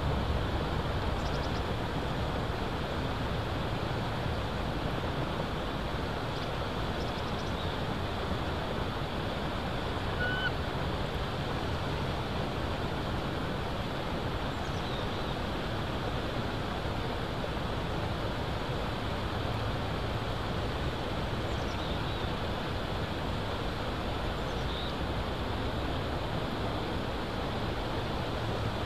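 Steady rushing of wind through the pine trees and over the outdoor microphone, with a low rumble underneath. A faint short high note sounds once about ten seconds in.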